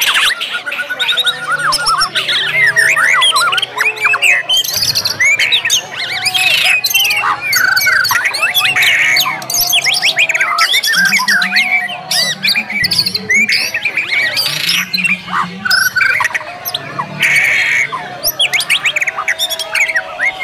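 Several white-rumped shamas (murai batu) singing at once in a dense, unbroken mix of fast whistled phrases, quick rising and falling notes, and harsh chattering calls, with a few short buzzy bursts among them.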